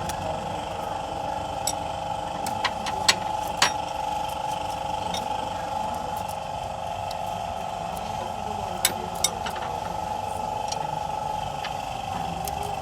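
Sharp metallic clicks and clinks of hand tools on engine parts, a handful scattered over a few seconds, over a steady mechanical hum.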